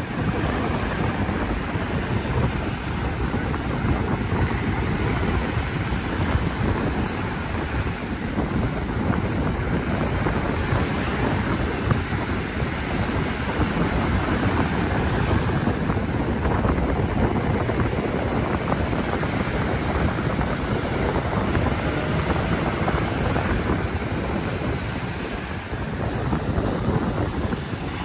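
Strong wind buffeting the microphone over the steady wash of surf breaking on the shore.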